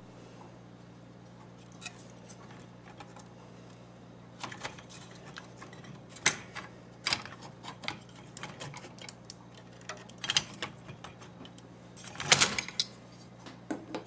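Irregular clicks, taps and short rattles of small hard parts being handled, loudest in a cluster about twelve seconds in, over a steady low hum.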